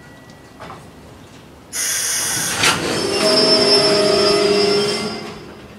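Brakes of a freight train's Koki 104 container wagons squealing as the train slows: a sudden loud hiss with several steady squealing tones starts about two seconds in, lasts about three seconds, then fades.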